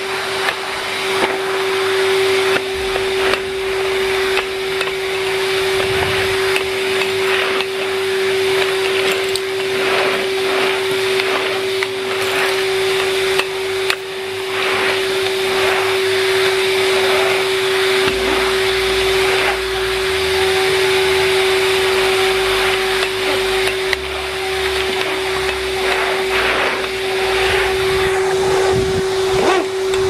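Numatic Henry Wash vacuum cleaner running steadily, its motor giving a constant whine. Irregular scrapes and clatters come from the brush nozzle being worked over concrete paving slabs.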